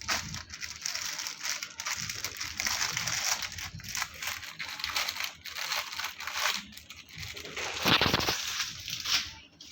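Plastic parcel packaging crinkling and rustling as it is torn open and handled, in irregular crackly bursts, with one louder rustle about eight seconds in.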